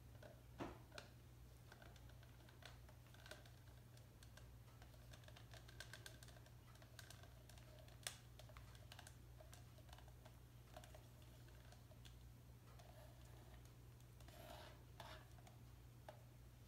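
Near silence: a steady low hum of room tone with faint, scattered small clicks and ticks from handling.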